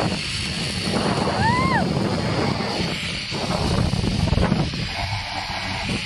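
Zipline trolley running along a steel cable while the rider's wind rushes over the camera microphone, a steady rumbling hiss. A short high note rises and falls about a second and a half in.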